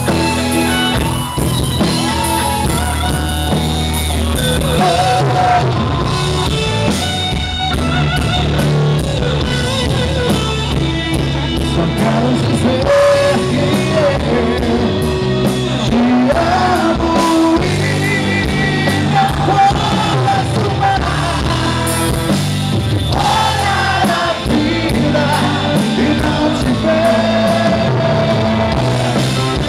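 A gospel band playing with a lead singer: sung melody over a full rock-style band.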